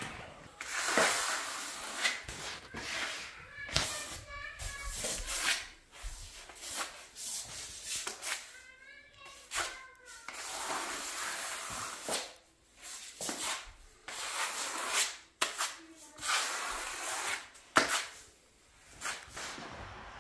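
Steel notched trowel scraping and combing through wet cement-based patching compound on a concrete slab, in repeated irregular strokes, each a rasping hiss.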